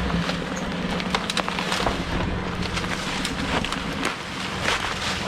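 Off-road vehicle crawling over rocks: its engine runs steadily at low speed while irregular sharp clicks and crunches of rock under the tyres come throughout.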